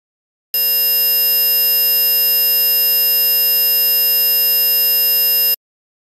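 Synthesized tinnitus-simulation test tone: a steady buzzing tone made of many pitches at once, starting sharply about half a second in and cutting off sharply about five seconds later.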